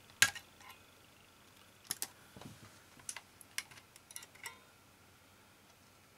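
Scattered sharp clicks and taps of plastic and metal parts being handled inside an opened Mac Mini as its optical drive assembly is worked loose. There is one loud click just after the start, then small clusters of lighter clicks, which stop about four and a half seconds in.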